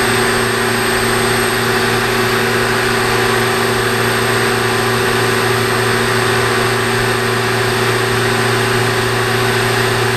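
Citizen M16 CNC Swiss-type lathe's main spindle headstock running, heard from close by: a steady machine hum and whine with several constant tones over an even hiss.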